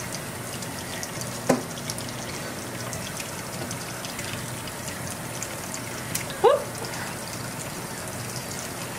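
Kitchen faucet running steadily, its stream splashing into a stainless steel sink over a wet puppy being rinsed. A short rising squeak sounds about a second and a half in, and a louder one a little past six seconds.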